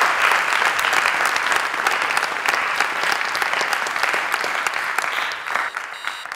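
A crowd applauding, a dense patter of many hands clapping that gradually dies away near the end.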